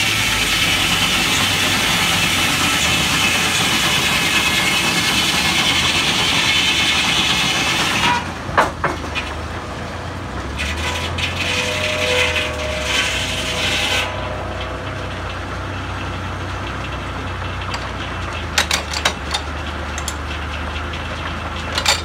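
Belt-driven circular sawmill blade cutting through a log with a loud, whining rasp that stops abruptly about eight seconds in as the cut ends. After that the saw and its drive keep running with a low steady hum, and the carriage and log dogs give scattered clanks and knocks.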